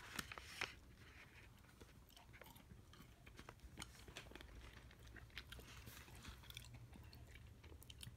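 Near silence: faint scattered clicks and light rustles from hands handling small plastic snack packets of walnuts, over a low steady hum.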